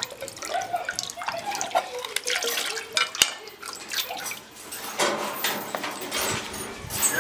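Coconut water pouring and splashing into a metal basin half full of water as fresh coconuts are split open over it, with a sharp knock of a machete striking a shell about three seconds in.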